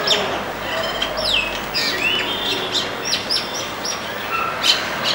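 Indian myna calling: a busy run of short whistled notes, falling slurs and sharp clicks.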